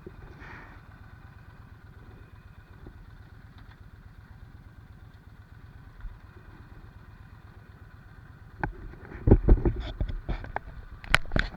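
Yamaha Stryker's V-twin engine idling steadily. About three-quarters of the way through comes a run of loud, sudden knocks and thumps, louder than the engine.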